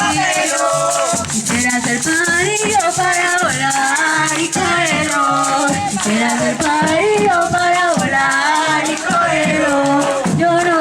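A sung folk song: a voice singing a melody over a shaker rattling a steady rhythm.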